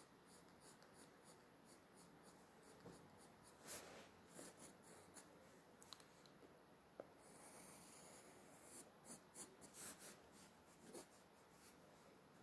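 Faint scratching of a fine drawing tip on paper: short, irregular strokes, with one longer continuous stroke a little past the middle.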